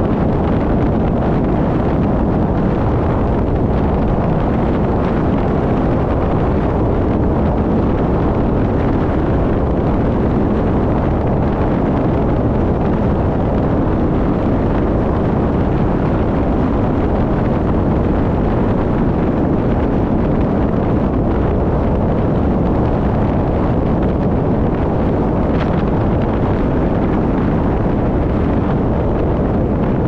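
Steady rush of wind on the microphone mixed with road and tyre noise from a car driving along a street.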